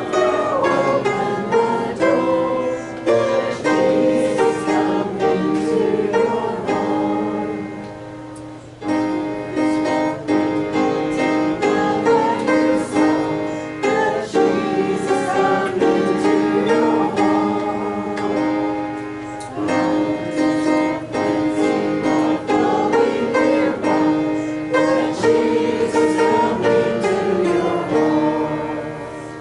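Church congregation singing a hymn from the hymnal, with instrumental accompaniment; the music eases off briefly about eight seconds in before the next line.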